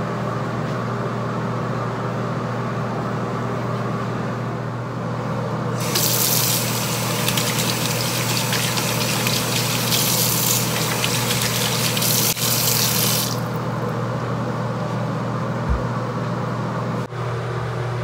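Bathroom sink tap running for about seven seconds while a small glass dish and brush are rinsed under the stream, over a steady low hum.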